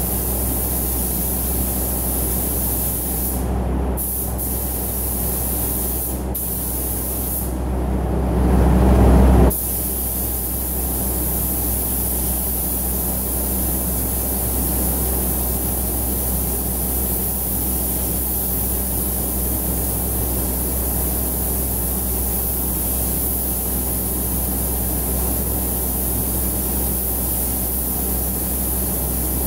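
Compressed-air spray gun hissing as paint is sprayed, over the steady low hum of a paint spray booth's ventilation. The hiss stops briefly a few times in the first ten seconds, and a louder low rush swells and then cuts off sharply about nine and a half seconds in.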